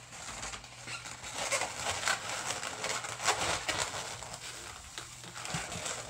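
Latex 260 modelling balloons squeaking and rubbing against each other as they are twisted and worked by hand, in a run of irregular short squeaks and scrapes.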